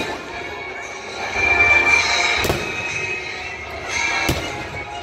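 Aerial fireworks shells bursting, with two sharp bangs about two seconds apart, over music played with the show.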